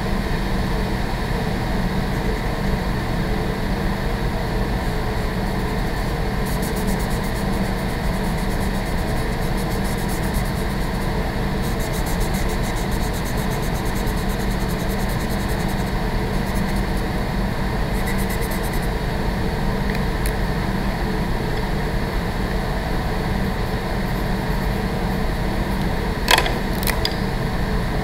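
Steady hum and rush of a building's ventilation system running. A marker scratches faintly on sketchbook paper in several spells, and there are two light clicks near the end.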